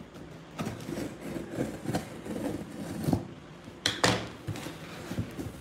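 A blade slitting the packing tape along the seam of a cardboard shipping box, with scraping and rustling of the cardboard and a few sharper knocks, the loudest about four seconds in.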